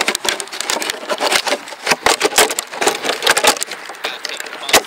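Kyosho Blizzard RC snowcat's tracks and chassis clattering as it drives, an irregular run of sharp clicks and knocks.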